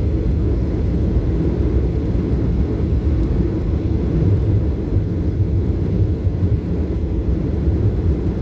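Steady low rumble of a Boeing 737's jet engines and rushing air, heard from inside the passenger cabin during the climb after takeoff.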